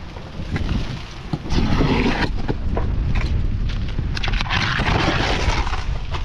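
Wind rumbling on the microphone, with two stretches of scraping and rustling from roofing work, one about a second and a half in and a longer one around four and a half seconds in, and scattered clicks between.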